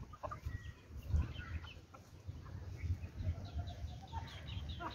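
Chickens clucking in short scattered calls, with low thuds of footsteps on dirt underneath.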